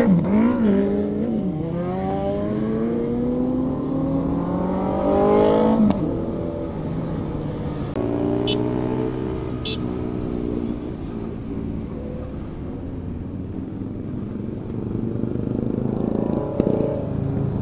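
Motorcycle engine accelerating through the gears: its note climbs for about five seconds, drops sharply at a gear change about six seconds in, then climbs again more slowly.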